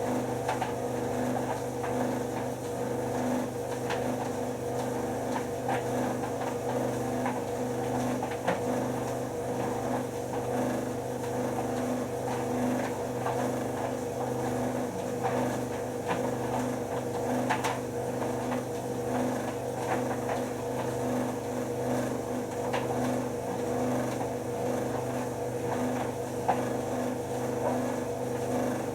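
White Knight C44A7W vented tumble dryer running: a steady motor and drum hum with a few faint clicks now and then.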